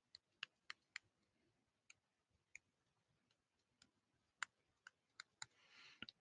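Near silence broken by faint, sharp clicks at irregular intervals, about a dozen in all, bunched near the start and again towards the end.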